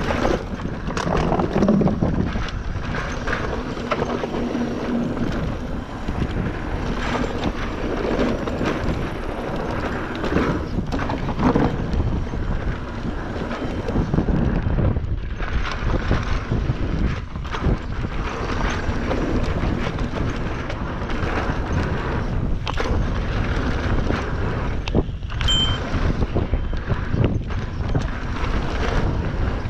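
Wind buffeting the microphone over the rumble and rattle of a fast downhill ride across rough ground, with many small knocks and jolts.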